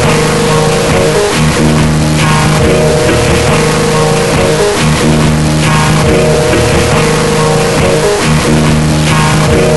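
Music: a loud, steady track with guitar and bass playing held chords that change every second or two.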